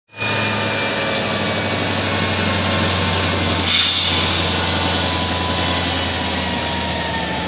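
Heavy-haul tractor truck's diesel engine running steadily as it slowly pulls a 171-tonne transformer on a multi-axle modular trailer, a low hum with a faint, slowly falling whine. A short hiss about halfway through.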